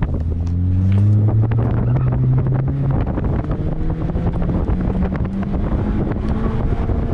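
Honda Fit's four-cylinder engine pulling hard during an autocross run, heard from inside the cabin. Its pitch climbs for about three seconds, then drops a little and holds steady, with wind and tyre noise underneath.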